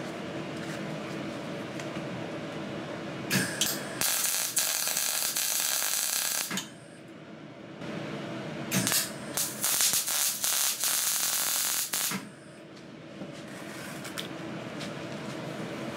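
MIG welder arc crackling in two bursts of about three seconds each, a few short sputters starting each one, as a joint in a steel exhaust pipe is tack-welded again after the first tack failed to hold. A steady hum runs underneath.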